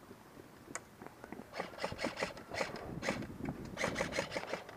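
Footsteps crunching over dry ground, irregular and coming thicker and louder from about a second and a half in, after a single sharp click.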